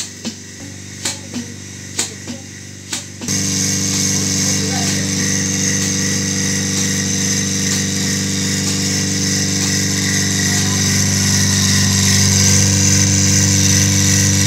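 Milking machine clicking regularly, in pairs about a second apart, for about three seconds; then the New KPT NKPT-SAT21 milking machine's electric vacuum pump starts running with a loud steady hum that grows a little louder near the end.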